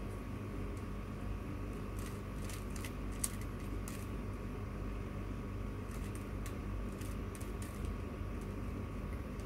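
Plastic 3x3 puzzle cube being turned by hand: quick irregular clicks of the layers snapping round, in runs about two seconds in and again around six seconds. A steady low hum lies under the clicks.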